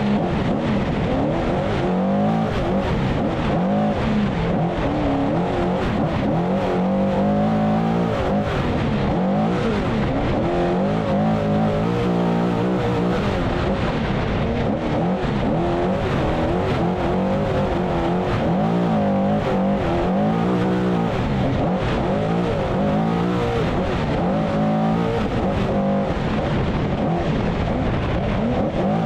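A Trophy Truck's race engine running hard, its pitch rising and falling over and over as the throttle is worked.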